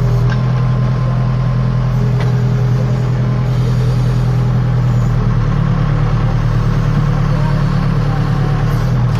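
Case 580 Super K backhoe's four-cylinder diesel engine running steadily as the backhoe is worked, its note shifting about five seconds in.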